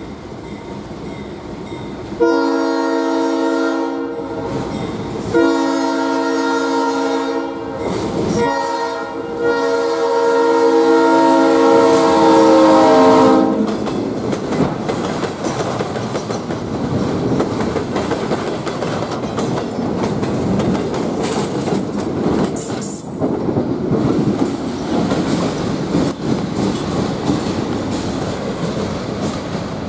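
Diesel locomotive's multi-chime air horn sounding two long blasts, a short one and a long one, the grade-crossing signal. Then freight cars rolling past close by, wheels clacking over the rail joints.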